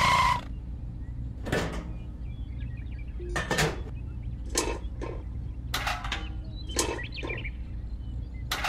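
A short electronic beep cuts off at the start. Then come a series of scattered light clicks and clunks as small toy metal buckets of sand and cement are handled and set down, over a steady low hum.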